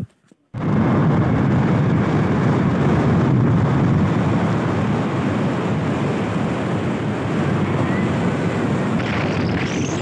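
Steady wind rush and rumble on the microphone of a moving motorbike, starting about half a second in after a short gap.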